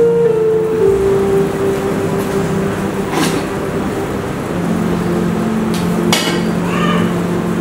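Held low drone notes, like a dramatic background music cue, over a steady hiss. A few sharp knocks or clangs stand out, about three seconds in and again about six seconds in.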